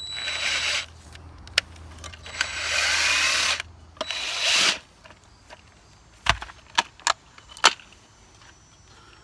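Cordless drill-driver backing out screws from an outdoor GFCI outlet cover, spinning in three short runs. Later come a few sharp clicks and knocks as the parts are handled.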